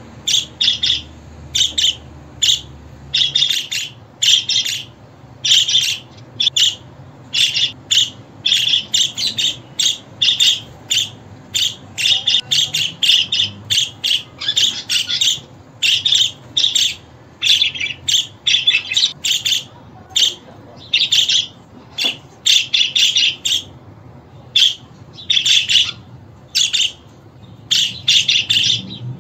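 Budgerigars chirping and chattering in quick, short bursts with brief pauses, the shrill calls repeating several times a second.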